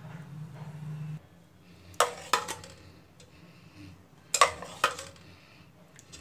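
Stainless steel utensils clinking against a steel pot and mesh strainer: a ladle scooping mashed bottle gourd soup into the strainer. The clinks come in two sharp pairs about two seconds apart.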